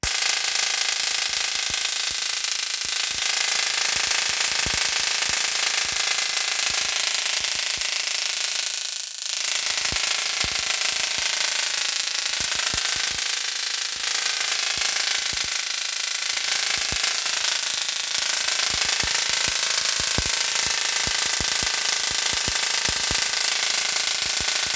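Tesla coil with a pancake secondary running and firing spark streamers from its top terminal: a loud buzzing crackle with scattered sharp snaps, starting suddenly, its pitch wavering in places and briefly dipping about nine seconds in.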